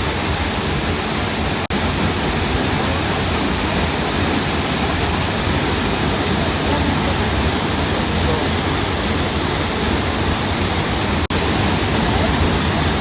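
Kachanh waterfall rushing: a loud, steady wash of falling water, broken by two momentary dropouts.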